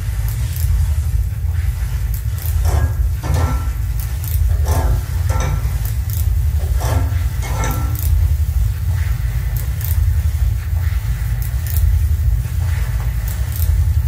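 Electroacoustic collage played over a loudspeaker, built from layered recordings of a historic laundry mangle turning with plastic bottles squeezed between its rollers: a dense steady low rumble with scattered clicks, and short noisy bursts in the middle.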